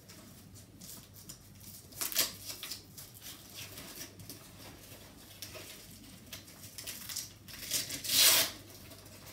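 Stroller seat fabric rustling as hook-and-loop (Velcro) straps on the corners of the seat are pulled tight and fastened, with short rasping rips; the loudest comes about two seconds in and a longer one near the end.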